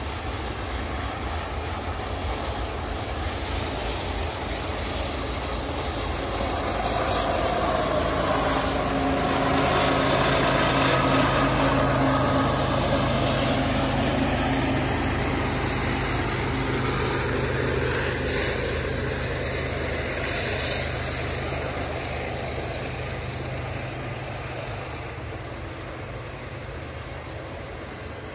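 Double-stack intermodal freight train rolling past: the steady rumble and rattle of loaded well cars on the rails, with a low drone that swells to its loudest around the middle and then fades.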